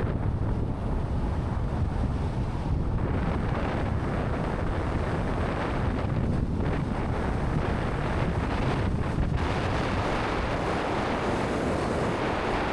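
Wind buffeting an action camera's microphone: a steady rushing noise, heaviest in the low rumble.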